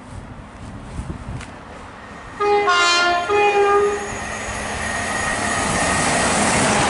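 CrossCountry Voyager diesel train sounding its horn, a loud call of changing notes about a second and a half long, a little over two seconds in. The rumble and rush of the train grow steadily louder as it approaches at speed.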